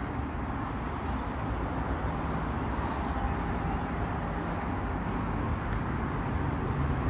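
Steady outdoor background noise, a low rumble with a hiss over it. A few faint clicks come about two to three seconds in.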